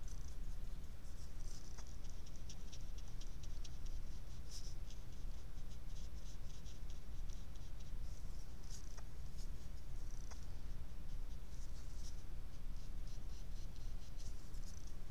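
Small paintbrush working watercolour on paper, giving soft scratchy strokes in short irregular runs, over a steady low hum.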